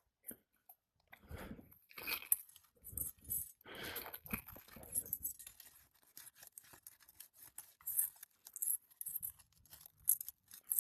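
Brittle asphalt 3-tab shingles being worked loose so their nails can be pulled: irregular crunching and scraping, with small sharp clicks of a metal tool against shingles and nails.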